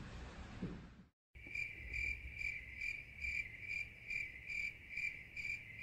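Crickets chirping, a steady high chirp pulsing about two to three times a second. It starts suddenly about a second in, after a brief dead silence at an edit. It is the 'crickets' effect for a bored, silent class.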